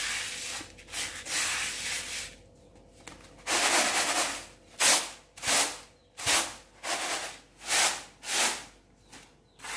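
Raw rice grains rustling as a hand stirs them across a woven bamboo winnowing tray (tampah), then about seven rhythmic swishes, roughly two a second, as the tray is worked to winnow the rice.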